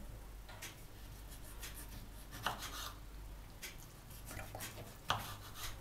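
Kitchen knife dicing a tomato on a wooden cutting board: irregular taps of the blade on the board with soft slicing scrapes, the loudest about halfway through and near the end.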